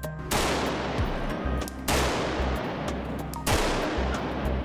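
Three long bursts of rapid gunfire from an AR-15 rifle, each running over a second and coming about every second and a half, over background music.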